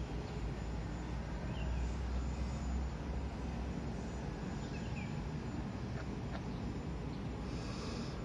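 Steady outdoor background rumble of distant city traffic, with a few faint, short bird chirps.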